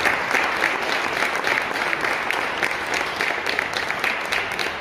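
Audience applauding, a dense patter of many hands clapping that thins and dies away toward the end.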